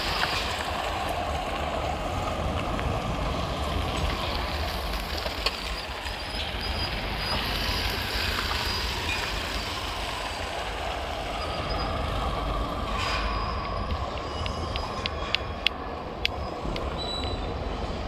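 Steady vehicle traffic noise with a low rumble. A run of short, sharp clicks comes about three-quarters of the way in.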